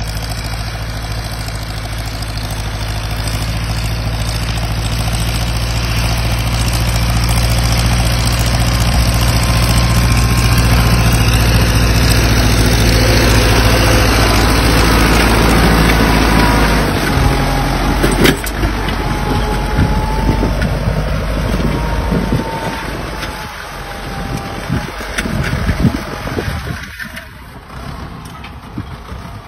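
Farm tractor's diesel engine running steadily with a low rumble while pulling a disc plough through the soil. About two-thirds through, the even engine note gives way to rougher, uneven rumbling.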